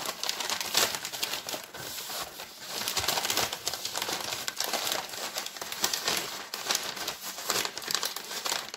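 Freezer paper crinkling and rustling as it is rolled up around a log of candy.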